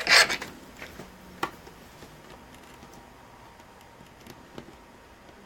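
A short scrape and then a sharp click about a second and a half in, followed by a few faint small clicks: laptop parts being handled and pressed as a tight-fitting metal piece is worked into place over the power jack.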